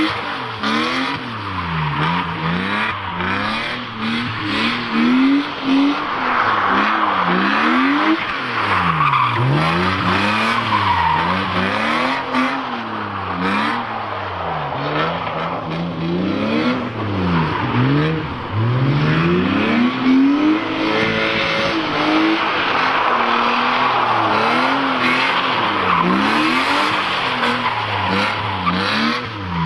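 BMW drift car's engine revving up and falling back over and over, about every two seconds, as the car slides sideways round the track with its tyres squealing.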